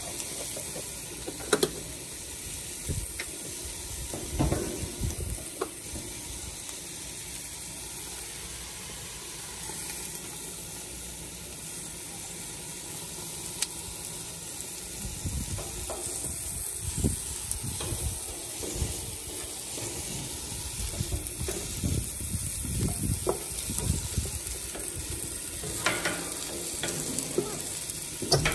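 Asparagus sizzling on a Blackstone flat-top griddle, a steady hiss, with a few sharp clicks and knocks as a spoon taps the food and the griddle.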